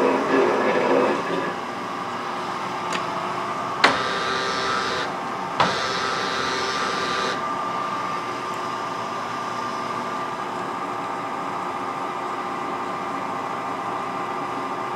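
Metal shaper cutting a metal block, its stroke noise dying away about a second in and leaving the machine's steady motor hum. Two sharp clicks come about four and five and a half seconds in, with a brief hiss between them.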